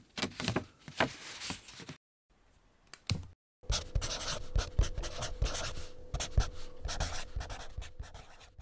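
Scribbling on paper: a run of quick, scratchy strokes that stops briefly about two seconds in and again near three and a half seconds, with a faint steady hum underneath from about three and a half seconds on.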